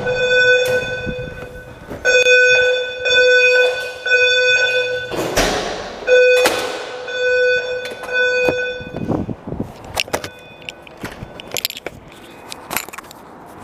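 Building fire alarm sounding a loud, buzzing tone in on-off stretches for about nine seconds, with two short rushes of noise partway through. After the alarm cuts out, scattered knocks and clicks.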